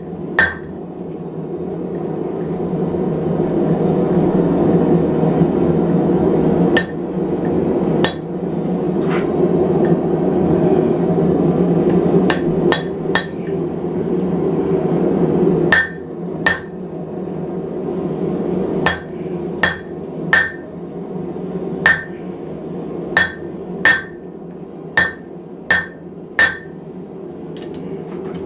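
Hammer striking hot steel on an anvil to cut the bar off: single ringing blows, a few seconds apart at first and then coming quicker in the second half. A steady low rushing noise runs underneath.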